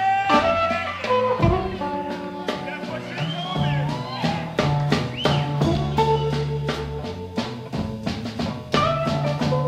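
Electric blues band playing an instrumental passage: a lead electric guitar with gliding, bending notes over a second guitar's low repeating line and a drum kit keeping a steady beat with rimshots.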